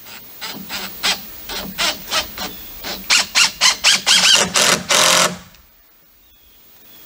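Cordless drill driving a screw into a pressure-treated wooden rail board. The trigger is pulsed in short bursts that come quicker and louder, with faint squeaks as the screw bites, then one longer run that stops sharply about five seconds in as the screw seats.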